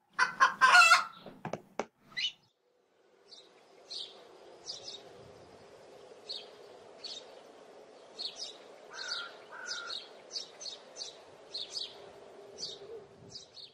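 A quick burst of clicks and swishes lasting about two seconds, then birds chirping in short, irregular calls over a steady low drone.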